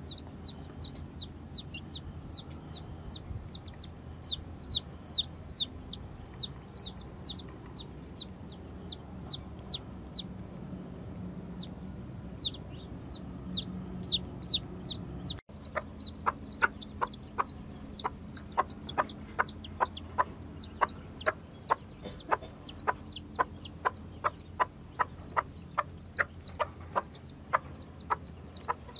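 Newly hatched chicks peeping: a stream of short, high, downward-sliding peeps from several chicks at once. A brief break comes about halfway through, after which the peeping is denser.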